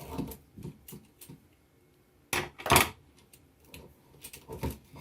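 Small clicks and knocks of hands handling a wall outlet and its wires, with a louder brief scrape and clatter about two and a half seconds in.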